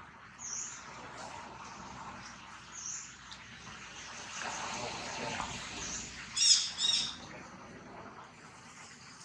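Wild birds chirping in short, high calls over a steady outdoor background hum, the loudest a pair of sharp chirps a little past halfway.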